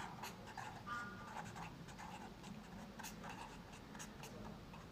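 Pen writing on ruled notebook paper: faint, quick, irregular scratching strokes of handwriting.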